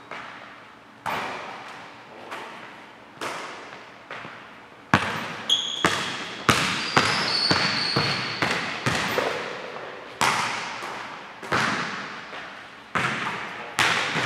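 Basketball thudding on a hardwood gym floor and off the rim during a shooting drill: sharp hits about once a second, each echoing in a large hall, coming faster for a few seconds in the middle, with a few short sneaker squeaks.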